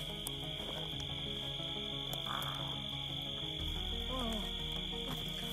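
Steady high-pitched night chorus of crickets and other insects, with background music of sustained low notes underneath.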